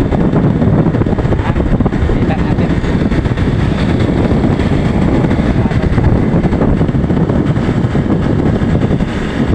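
Motorcycle on the move: wind rushing over the microphone, with the engine running beneath it.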